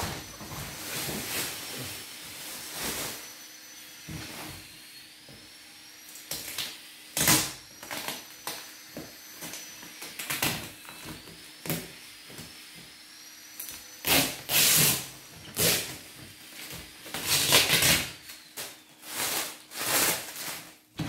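Packing tape being peeled and ripped off a plastic-wrapped cardboard box: a series of short tearing rips, most of them in the second half, with plastic wrapping rustling between them.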